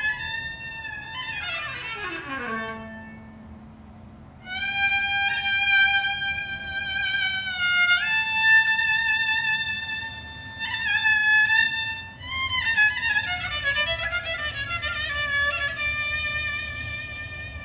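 Solo kamancha, a bowed spike fiddle, playing a slow melody. It opens with a long slide down to a low note, then holds long notes with vibrato that step up about halfway through, and ends on a quicker, ornamented phrase falling in pitch.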